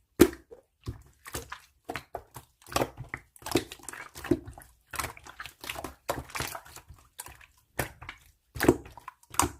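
Slime being squeezed and poked by hand, a run of irregular wet clicks and pops.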